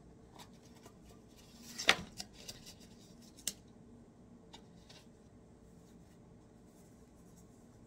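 Hands opening a small cardboard gift box and lifting out a paper-wrapped item: one sharp snap about two seconds in, a few lighter clicks and taps just after, another click a second or so later, then faint handling.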